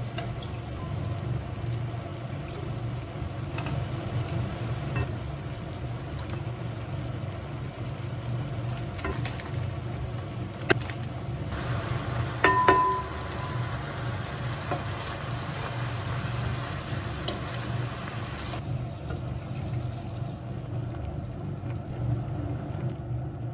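Stovetop cooking: a steady low hum, with food sizzling in a pan for about seven seconds in the middle. A sharp click comes about eleven seconds in, and a metal clink that rings briefly comes a little later.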